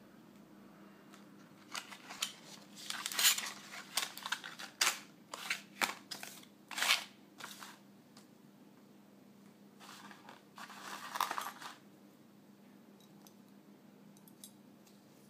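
Plastic packaging of a tire valve cap set being handled and opened: a run of crinkles and clicks for several seconds, a pause, then another burst of rustling, with a few faint ticks near the end over a faint steady hum.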